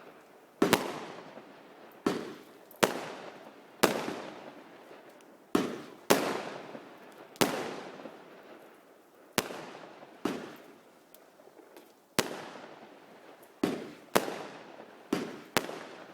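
Fireworks exploding one after another, about fourteen sharp bangs at uneven intervals, each trailing off in a long echoing rumble.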